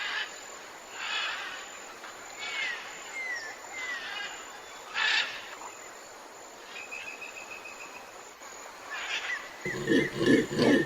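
Short, hoarse animal calls about every second or so, with small bird chirps and a whistled note between them. Near the end a rapid string of low grunts starts abruptly.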